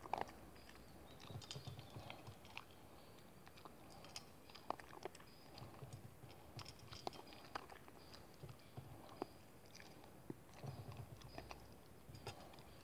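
Small dog eating dry kibble from a metal bowl: faint, irregular crunching and sharp clicks as it chews.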